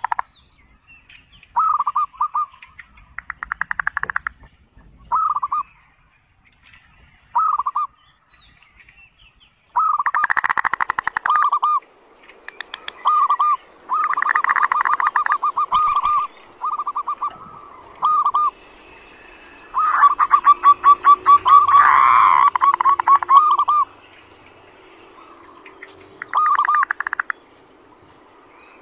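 Zebra dove (perkutut) calling in bursts of one to three seconds with short pauses between: runs of quick coos at much the same pitch, several of them breaking into a fast rolling rattle, the grating 'kerot' call that sets other zebra doves singing.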